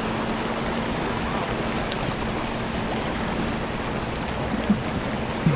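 Steady wash of surf breaking on the beach, with a faint steady hum underneath and two light clicks near the end.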